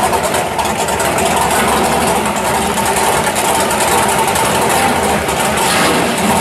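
Drag race car engine idling, steady and loud, with no revving.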